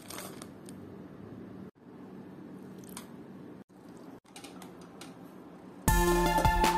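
Faint rustling and light clicks of dry rolled oats and a steel steamer pot being handled, with a low steady hum, broken by three brief dropouts. About six seconds in, instrumental background music starts and is louder than everything else.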